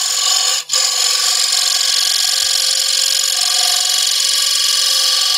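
Small Easy Wood Tools carbide cutter cutting a bead into a wooden bowl spinning on a lathe: a loud, steady high hiss of the cut with steady whining tones in it, breaking off for an instant about half a second in.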